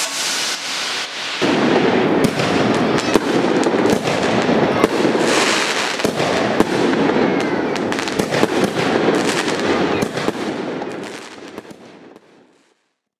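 Fireworks going off: a dense crackle of many sharp pops and bangs over a steady rushing noise. It dies away near the end.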